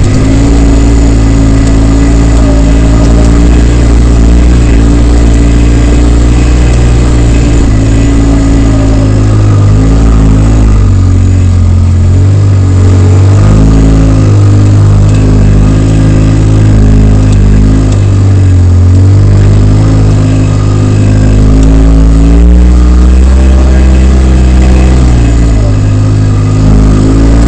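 Polaris RZR side-by-side's engine running loud under changing throttle, its pitch rising and falling again and again as it works over a rocky trail.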